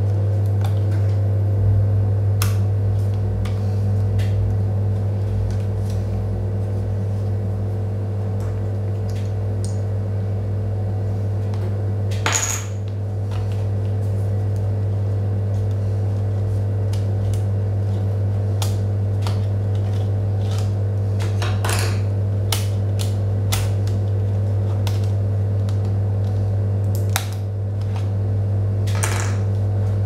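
Scattered clicks and light metallic taps as the plastic and metal panels on a laptop's underside are handled and the metal plate over the hard drive is taken off, with one sharper ringing clink about twelve seconds in. A loud steady low hum runs underneath.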